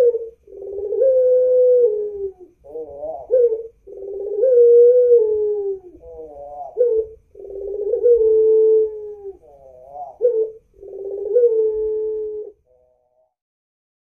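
White 'pelung' ringneck dove cooing: a short wavering note followed by a long, drawn-out coo, repeated four or five times, then stopping near the end.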